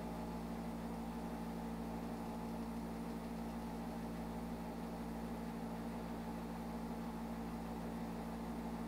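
Steady low hum with a faint hiss, unchanging throughout: the background noise floor of a voice-over recording between words.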